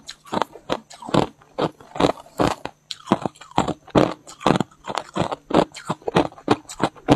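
Hard ice and freezer frost crunched between the teeth close to a lapel microphone: a steady run of sharp crunches, two or three a second, with a short pause about halfway.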